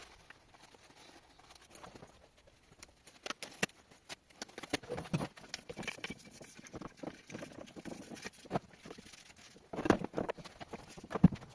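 Hand tools and metal gearbox parts being handled: irregular clicks, clinks and knocks, with a couple of louder knocks near the end.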